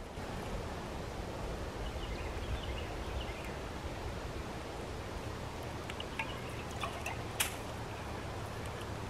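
Outdoor ambience: a steady low rumble with faint bird chirps, and a single sharp click about seven seconds in.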